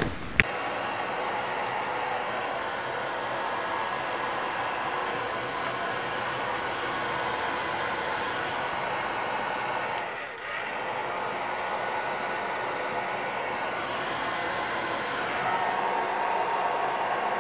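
Hand-held hair dryer running steadily, blowing a cat's fur dry after its bath. It comes in after a click about half a second in and dips briefly about ten seconds in.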